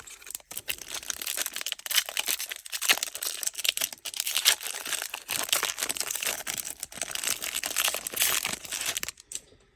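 Foil Pokémon booster pack wrapper crinkling as it is handled and torn open, a dense crackling that runs for about nine seconds.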